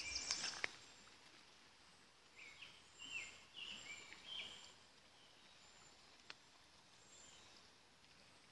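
Songbirds singing faintly: a run of short whistled phrases repeated several times a few seconds in, with thin high notes now and then. A brief rustle with a few clicks at the very start, and a single small click later.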